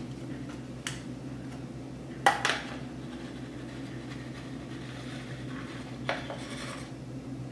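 Metal flour sifter being worked over a mixing bowl, giving soft metallic scraping and rattling as flour is sifted. There is a sharp knock a little over two seconds in and a lighter one about six seconds in, over a steady low hum.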